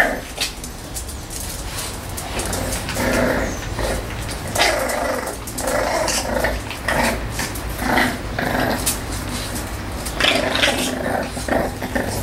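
Staffordshire Bull Terrier puppies growling in short, repeated bursts while play-fighting.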